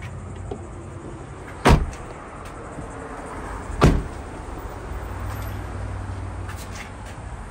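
Doors of a 2017 BMW i3 being shut, two solid thuds about two seconds apart.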